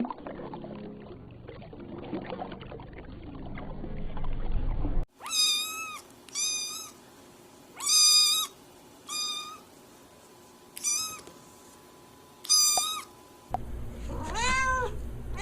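Domestic cat meowing: a series of about six short, high meows, then more arching meows from a different recording near the end. Before them, for the first five seconds or so, is a duller, noisier recording with no clear calls.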